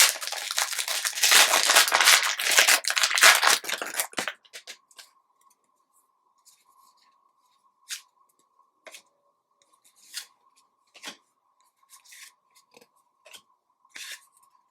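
A trading-card pack wrapper crinkling and tearing open for about four seconds, then quiet rustles and small taps as the cards are handled.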